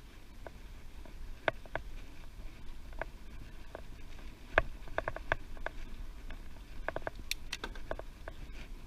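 A bicycle being ridden, making irregular sharp clicks and rattles, loudest about halfway through with a quick cluster near the end, over a steady low rumble of wind on the microphone.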